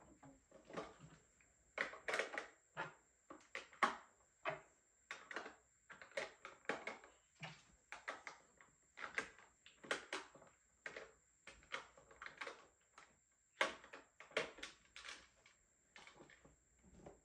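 Irregular light clicks and clacks of plastic makeup items (lipstick tubes, compacts and palettes) being picked up and set down among the clear plastic organizer trays of a vanity drawer.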